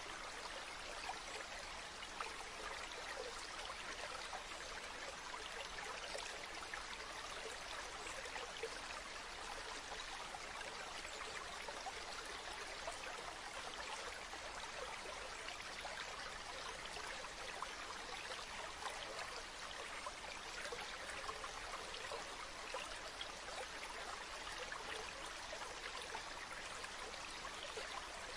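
Stream water flowing and trickling steadily.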